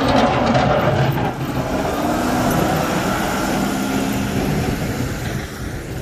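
Heavy snowplow truck passing close by, its engine running loud, then fading as it moves away near the end.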